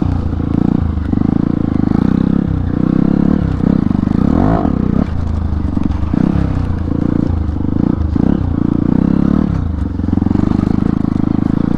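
Hero Impulse single-cylinder motorcycle engine under load while riding off-road. Its pitch climbs and drops again and again as the throttle is opened and closed through the gears.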